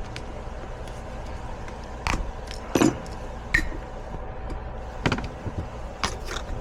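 Scattered sharp metallic clinks and knocks of tools and parts being handled while a furnace blower motor is worked on, about five or six in all, over a steady low hum.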